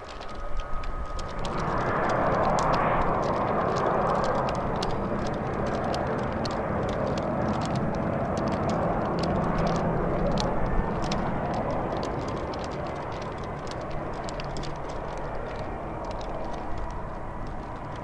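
Jet noise from a Boeing C-17 Globemaster III's four turbofan engines as it comes in to land. A broad rush swells about a second and a half in, is loudest a couple of seconds later, then fades slowly.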